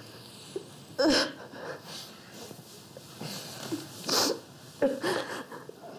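A man crying: a choked sob about a second in, then sharp sniffs and shaky breaths, and another sob near the end.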